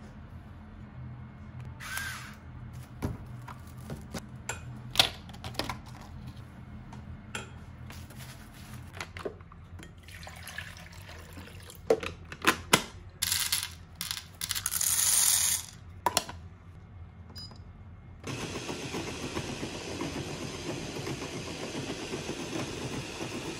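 Kitchen handling sounds: scattered clicks and rustles of plastic wrap and rice, then button clicks on an automatic coffee maker, a brief rushing noise, and from about three quarters of the way in a steady even noise that runs on to the end.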